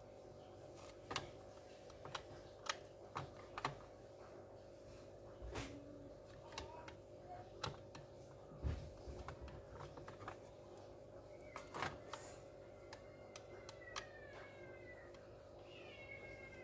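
Light, irregular clicks and taps of small parts being handled while an SSD is fitted into an open laptop, over a steady faint hum. Near the end, faint tones sliding down in pitch come in.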